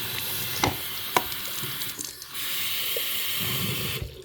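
Water running from a tap into a water bottle, with a couple of light knocks. The flow dips briefly about two seconds in and is turned off near the end.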